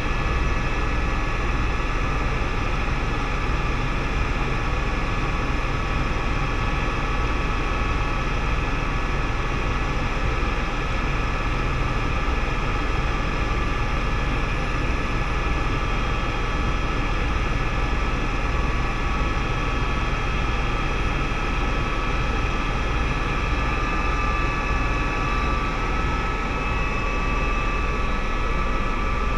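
Helicopter in flight heard from inside its cabin: a steady engine whine over a low, pulsing rotor rumble and constant rushing noise.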